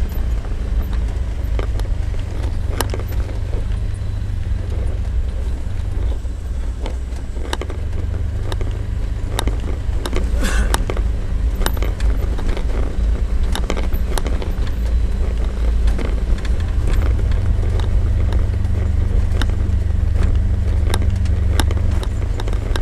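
Engine of an orange off-road Ranger vehicle running steadily at low speed on a rocky trail, with frequent rattles and knocks as it bounces over loose stones.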